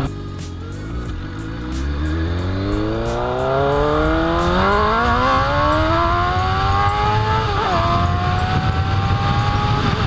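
Suzuki GSX-R750's inline-four engine accelerating under load: the pitch climbs steadily for several seconds, dips briefly at an upshift about three-quarters of the way through, then keeps climbing in the next gear.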